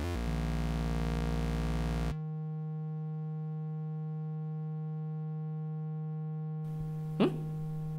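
A steady, buzzy synthesized electronic tone, a cartoon loading-screen sound effect; its low bottom drops away about two seconds in and the tone then holds level. A short chirp cuts across it about a second before the end.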